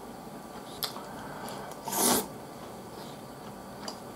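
Someone eating tenshinhan with a metal spoon: the spoon clinks sharply on the ceramic plate twice, and about two seconds in there is one short, loud slurp of a spoonful.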